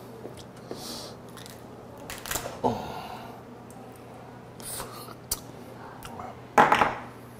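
Steamed lobster shell cracking and snapping as the claw and legs are pulled apart by hand, mixed with close-up eating sounds; a few short crunches, the loudest near the end.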